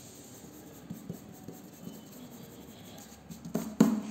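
Eraser rubbing out lines on a drawing, a faint scratchy rubbing, followed near the end by two quick knocks, the second louder.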